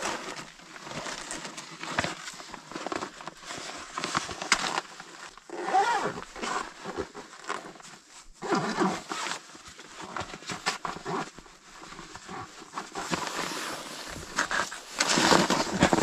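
Rustling of clothing and gear with scuffs and scrapes as a person shifts about, handles a boot and moves over rock and snow, getting louder near the end.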